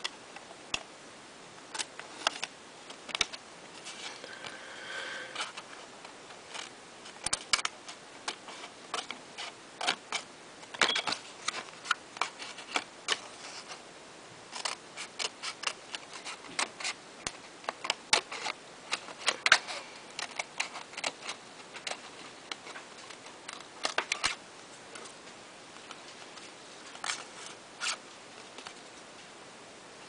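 Scissors snipping through a ruled cardstock index card: a run of short, irregular cutting clicks, thickest in the middle and thinning out near the end.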